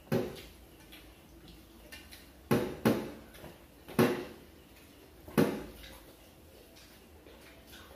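Dishes knocking and clinking on a dining table during a meal: about five sharp clacks, two of them close together near the middle, the loudest about four seconds in.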